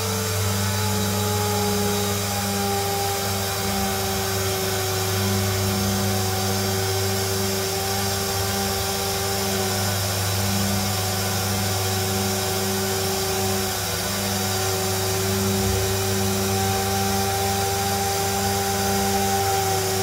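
Abrasive deburring wheel on an automated spindle running against the teeth of a helicopter ring gear as the gear turns. A steady hiss of abrasion sits over a low machine hum, with a motor whine that sinks slightly in pitch over the first few seconds and then holds steady.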